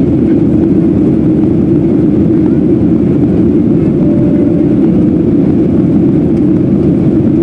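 Steady, loud cabin noise inside a Boeing 737 jet airliner in flight: the even drone of engines and rushing air, strongest in the low range, with no break.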